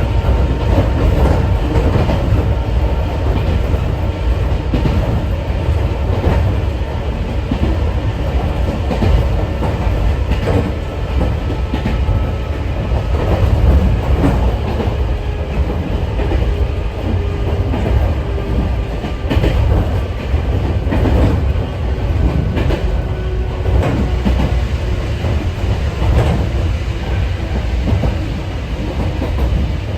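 Sangi Railway 801 series (ex-Seibu 701 series) electric train running, heard from inside the car: a steady low rumble with the clickety-clack of wheels over rail joints and a faint steady whine from the traction motors.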